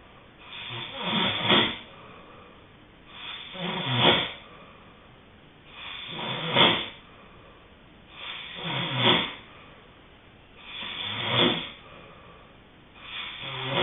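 A person snoring in sleep, a regular rhythm of about one snore every two and a half seconds. Each snore swells to a peak, with a quiet gap before the next.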